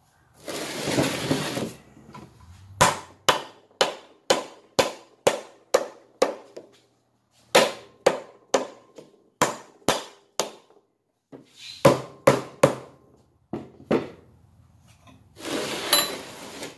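Hammer blows on a cast-iron water-pump housing, about two sharp strikes a second in three runs, knocking loose a housing glued on with silicone. A short scraping rustle comes before the strikes and another near the end.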